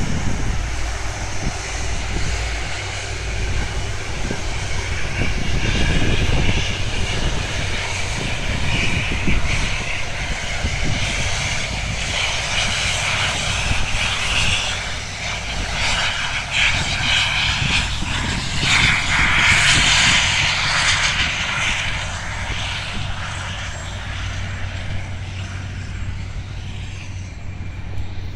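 Jet engines of an Etihad Airways airliner running on the runway: a steady hissing roar that swells through the middle, is loudest about twenty seconds in, then eases off.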